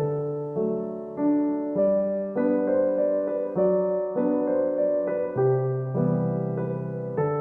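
Background piano music: a gentle, slow piece with a new note or chord struck about every half second and left to ring and fade.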